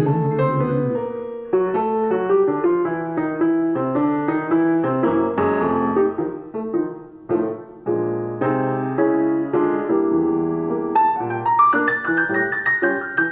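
Instrumental piano solo in a vocal jazz recording, played back through Soviet 10GDSh full-range speakers. It is a flowing run of notes, moving into a higher register near the end.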